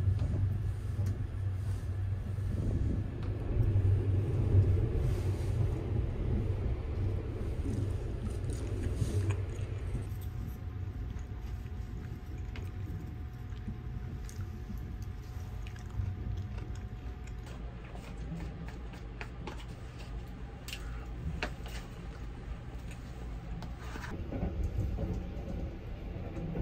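The low, steady rumble of the Sunrise Izumo sleeper train running, heard from inside a compartment, softer after about ten seconds. Scattered light clicks and taps of wooden chopsticks against a plastic bowl come near the end.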